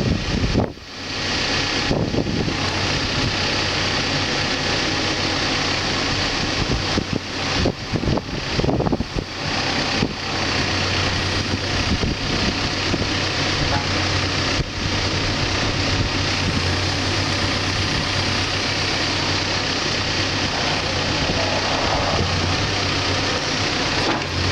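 Backhoe's diesel engine running steadily, a constant low hum with a noisy wash over it, briefly dropping in level just under a second in and again a few times near the middle.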